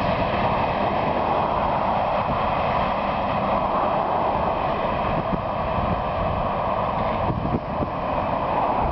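Steady rolling noise of a freight train of covered hopper cars receding down the track.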